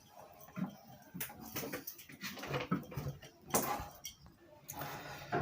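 Scattered light clicks and clinks of wires and small metal parts being handled while an electric water heater's element is wired up.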